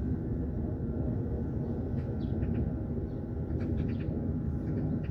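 Seaside ambience: a steady low rumble, with several short, high bird chirps scattered through it.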